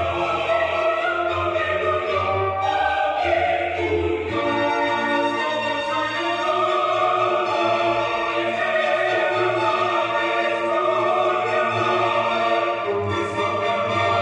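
A choir singing sacred-style music with orchestral accompaniment, in slow held chords.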